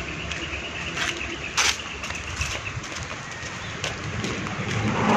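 Rural outdoor ambience with faint bird calls, under the rustle and a few sharp knocks of a handheld phone being moved close to the microphone.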